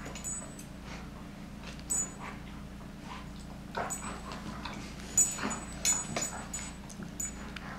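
German shepherd–Labrador mix dog giving several short whimpers as she mouths a giant plush teddy bear, the loudest about two-thirds of the way through.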